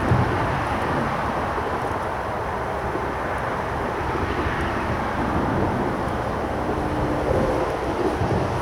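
Steady road traffic noise from a bridge nearby, an even, continuous wash of tyres and engines.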